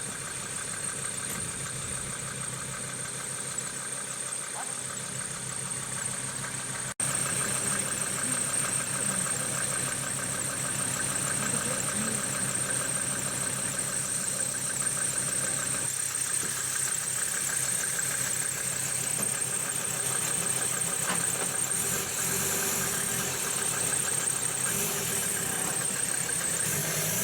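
Diesel engine idling steadily, with a brief dropout about seven seconds in.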